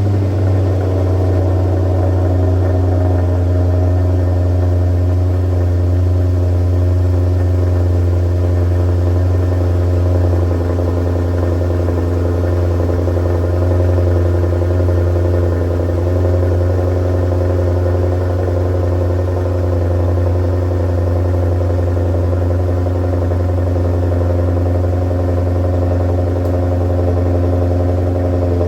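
Maserati Quattroporte 4.2's V8 idling steadily on its stock exhaust just after a cold start, with an even low hum.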